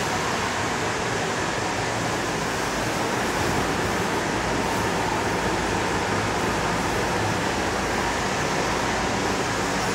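Steady rushing air noise with a faint low hum.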